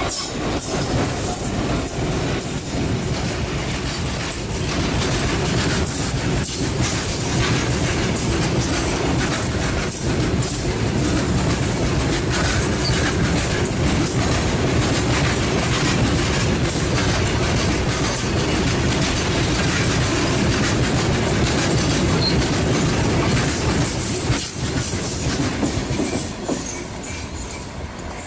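Freight train's covered goods wagons rolling past at close range: a steady, loud rumble of wheels on rail with a fast clickety-clack, easing slightly near the end as the last wagons approach.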